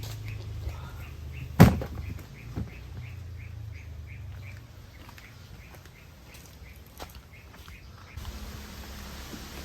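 A bird chirping, one short call repeated about three times a second, over a low rumble. There is one sharp knock about a second and a half in.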